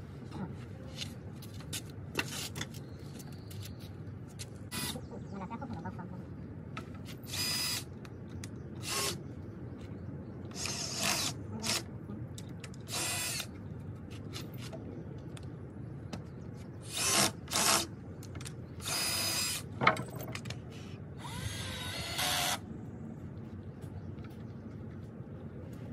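Power drill running in about a dozen short bursts, each lasting from half a second to about a second, with gaps of one to three seconds between them.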